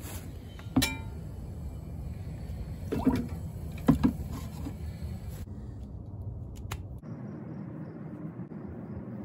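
Three sharp knocks from the electrolysis rig being handled in a plastic tub of water, the first with a short ring, over a steady low background noise that changes to a quieter hiss about seven seconds in.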